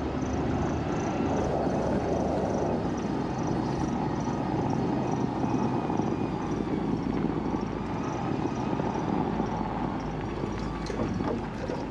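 1997 Land Rover Discovery's V8 engine running as the truck drives along a snowy trail, its mud-terrain tyres rolling through the snow, heard from outside beside the front wheel as a steady, even noise.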